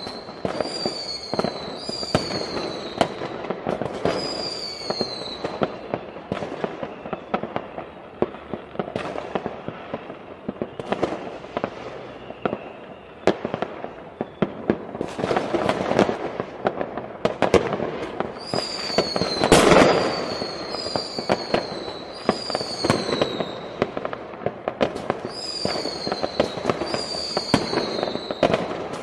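New Year fireworks going off in many overlapping bangs and crackles, with louder bursts a little past the middle. Twice a run of short falling whistles repeats under a second apart, first at the start and again through the second half.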